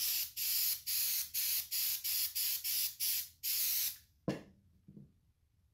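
Aerosol can of 2P-10 CA glue activator spraying in about ten short bursts over four seconds, misting the superglue so it sets at once. A sharp knock follows, then a softer thump.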